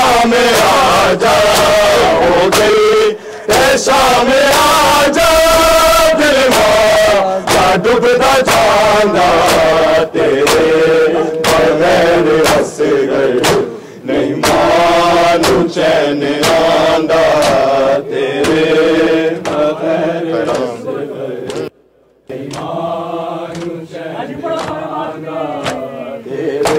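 A crowd of men chanting a Shia mourning nauha in unison, with sharp rhythmic slaps of matam (hands beating bare chests). The chanting breaks off briefly near the end, then resumes.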